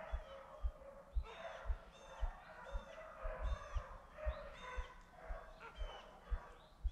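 Footsteps pushing through dry brush and grass, about two steps a second, each a low thud with a swish of stems. Short high calls from an animal sound over the steps.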